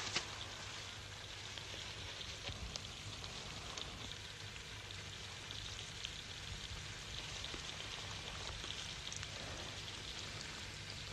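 Steady hiss with faint scattered crackle and a low hum: the surface noise of an old film soundtrack, with no other sound standing out.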